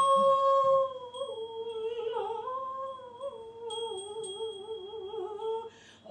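A woman's voice singing without words in pansori style: a long held note slides lower about a second in, then wavers and bends in pitch, and stops shortly before the end.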